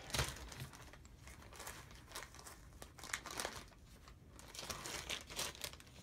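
Plastic zip-top parts bag crinkling as it is handled, a run of irregular crackles.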